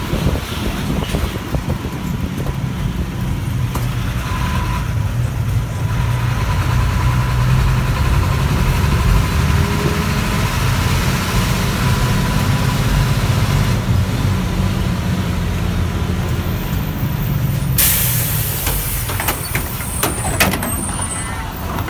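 City bus engine running steadily with a low rumble while the bus moves, then about 18 s in a sudden short hiss of released compressed air as the bus halts at a stop, followed by a few clicks and knocks.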